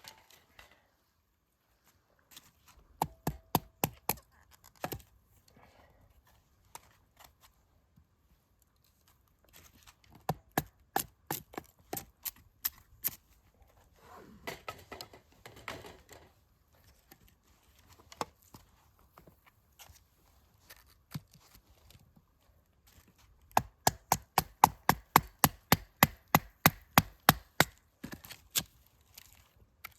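Gransfors Bruks Small Forest axe chopping wood in runs of sharp knocks, with a fast run of about four strikes a second near the end. Softer scraping and handling of the wood comes between the runs.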